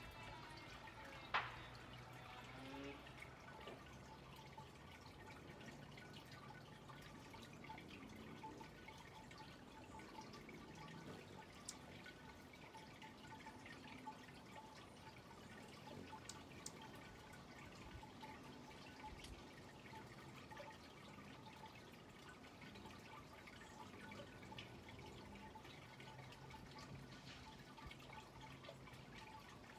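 Near silence: faint outdoor ambience with a thin steady tone and a few soft ticks, and one sharp click about a second and a half in.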